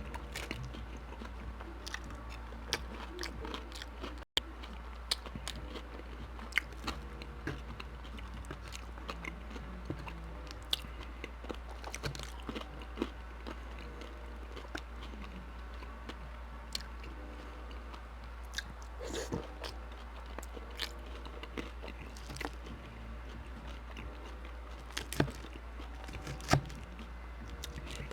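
A person chewing and biting mouthfuls of poutine close to the microphone, with many small mouth clicks.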